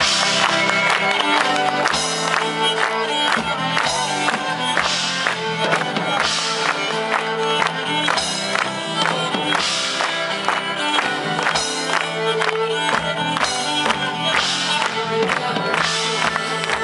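Live medieval-style folk band playing an instrumental passage: a bowed nyckelharpa and a strummed acoustic guitar over a steady drone, driven by a regular drum beat.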